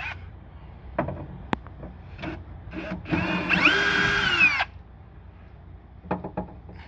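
Power drill run in one burst of about a second and a half, its whine rising as it spins up and dropping as it stops. A few knocks and clicks from handling come before it.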